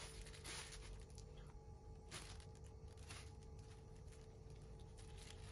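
Near silence: faint, soft crinkles of a plastic piping bag being squeezed as strawberry jam is piped out, over a faint steady hum.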